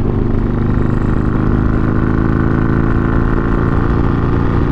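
Harley-Davidson Iron 883 Sportster's air-cooled V-twin, breathing through a Two Brothers Racing Comp S stainless 2-into-1 exhaust, running steadily under way at highway speed, heard from the rider's helmet.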